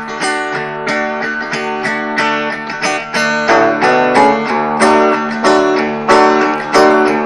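Acoustic guitar strumming chords in a steady rhythm, with no singing. The strokes become sharper and more regular about halfway through, roughly one every half second or so.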